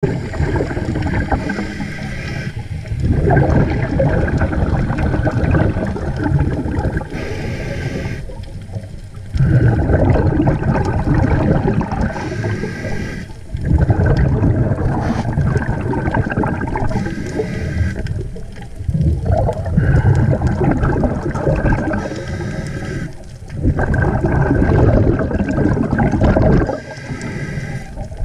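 Scuba diver breathing through a regulator underwater: a loud rush of exhaled bubbles about every five seconds, with short quieter gaps between breaths.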